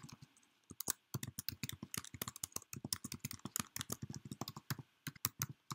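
Typing on a computer keyboard: a quick run of keystroke clicks, with a short pause about half a second in and another near the end.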